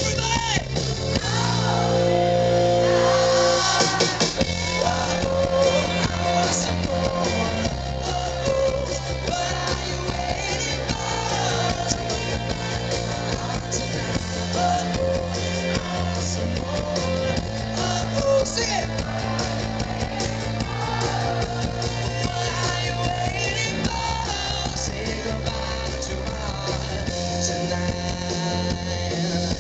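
Live pop-rock band playing: a male lead singer singing over drums, bass, electric guitars and keyboard. It is loud and heard from among the audience.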